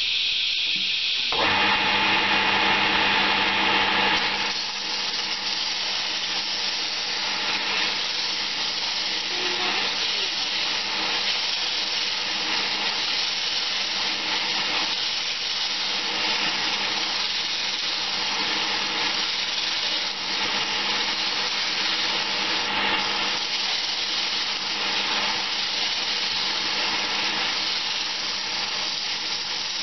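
Small electric wood lathe running steadily while sandpaper is held against a spinning banksia seed pod: a continuous sanding hiss over a steady motor hum. It is louder for a few seconds about a second in, then settles slightly quieter.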